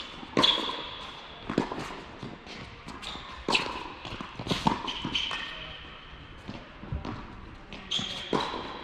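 Tennis rally on an indoor hard court: sharp pops of racquet strikes and ball bounces, about ten in all, each ringing briefly in the echoing hall.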